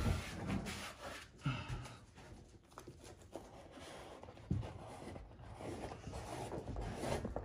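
Pasted wallpaper mural paper rustling and crinkling as it is lifted and worked by hand against a ceiling, with a few soft knocks along the way.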